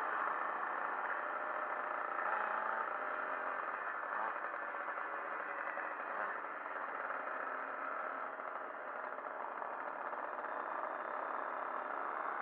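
Small moped engine running steadily while riding along the road, mixed with the rush of wind and road noise on the bike-mounted microphone.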